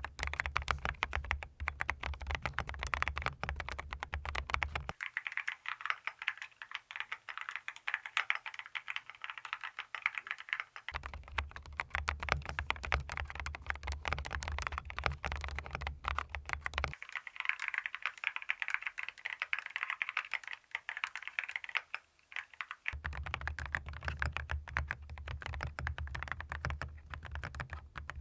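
Continuous fast typing on a mechanical keyboard with WS Quartz linear switches (nylon stems, clear polycarbonate housings) in an aluminium case: a dense stream of clear key clacks. Every six seconds or so the sound alternates between a fuller stretch with a deeper undertone and a thinner one.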